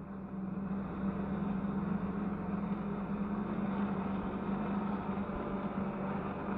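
Jet ski engine feeding a flyboard, running steadily as a constant drone over a wash of water noise. It gets a little louder about half a second in.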